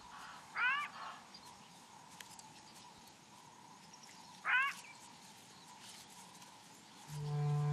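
A jackal giving alarm calls: two short, sharp yelps rising in pitch, about four seconds apart, betraying a stalking leopard. Music starts near the end.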